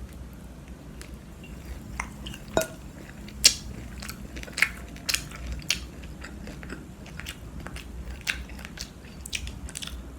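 Someone biting into and chewing crispy breaded soy garlic chicken, with irregular crunches.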